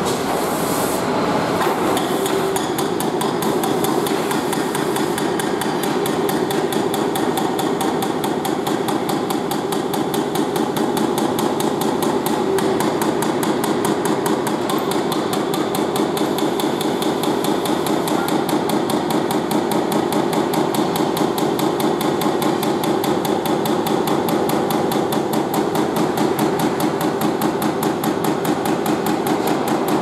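Hydraulic breaker on an excavator arm hammering its chisel into a brick wall: a rapid, even stream of blows that runs without a break.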